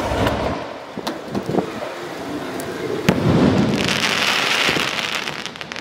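5-inch aerial shell fired from a mortar pipe: a sharp crack and rushing lift as it leaves the tube, then the shell bursts with a bang about three seconds in, followed by a fizzing crackle of the falling stars.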